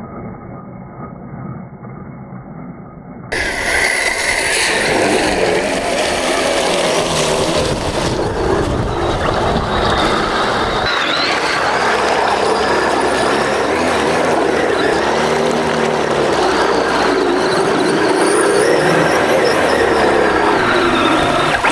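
A battery-powered 6x6 RC truck's electric motor and drivetrain whining, the pitch rising and falling with the throttle, as it plows through deep muddy water with splashing and churning. About three seconds in the sound becomes suddenly louder and fuller.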